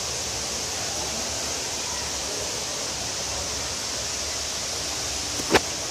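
Steady rushing hiss of a large indoor waterfall falling inside a glass conservatory dome. A single sharp click about five and a half seconds in.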